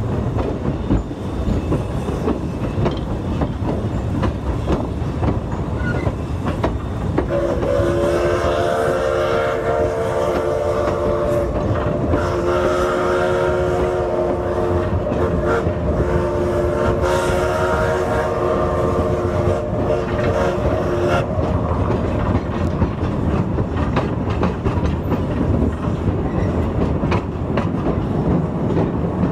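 Steam locomotive whistle blowing for about fourteen seconds, starting about seven seconds in, over the steady clickety-clack of freight cars rolling on jointed rail.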